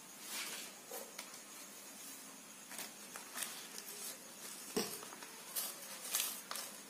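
Sal leaves rustling and crinkling as hands fold them into a wrapping, in short irregular crackles, with one sharper click about five seconds in.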